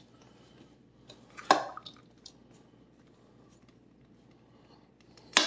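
Shredded chicken with chopped peppers and onion being stirred with a slotted spoon in a plastic bowl: soft squishing and scraping, with a sharp knock of the spoon against the bowl about one and a half seconds in and another sharp clack near the end.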